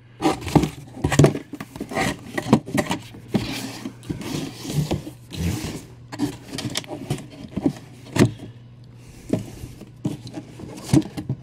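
Cardboard box lid being worked down onto its base: the cardboard scrapes and rubs, with frequent light knocks and taps as it is pressed into place.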